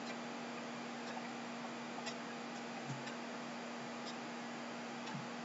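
Quiet room tone: a steady low hiss with a constant electrical hum and faint ticks about once a second.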